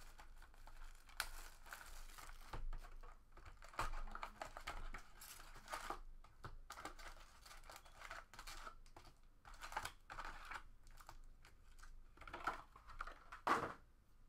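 Plastic shrink-wrap crinkling and tearing as it comes off a trading-card hobby box, then foil card packs and box cardboard rustling and clicking as the packs are pulled out and stacked. The handling comes in short irregular rustles, the loudest about 13 seconds in.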